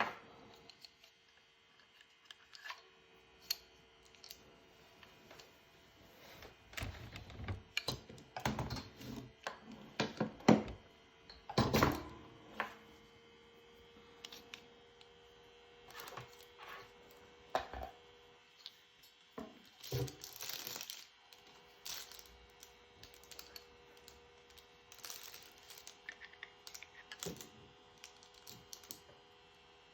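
Handling noises: irregular clicks, knocks and crinkling of packaging being handled, with a cluster of louder knocks in the middle, over a faint steady hum.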